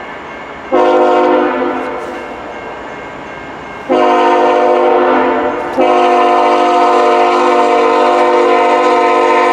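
CN locomotive's multi-tone air horn sounding for a grade crossing: a short blast about a second in, then a long blast about four seconds in, then another long blast from about six seconds on.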